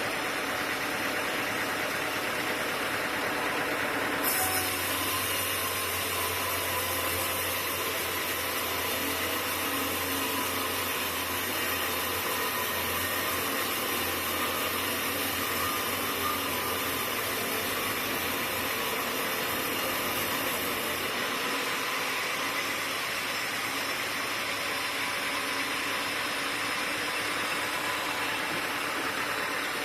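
Sawmill machinery running with a steady mechanical noise. About four seconds in, a high hiss and a low hum set in; the hum fades out some thirteen to nineteen seconds later, and the hiss cuts off at about twenty-one seconds.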